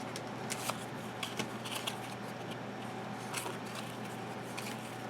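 Trading cards and their foil pack being handled: scattered soft clicks and rustles.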